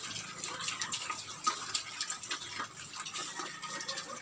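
Young pigs feeding at a concrete trough: irregular wet slurping and smacking, many small overlapping clicks.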